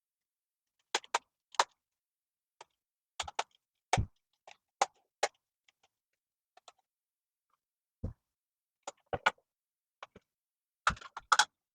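Scattered sharp clicks and knocks of a screwdriver and bits being handled against a vacuum cleaner's plastic housing, in small clusters with quiet gaps between.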